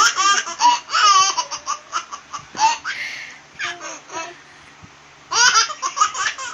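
High-pitched laughter in quick, breathy peals, with a lull of about a second and a half before another fit near the end.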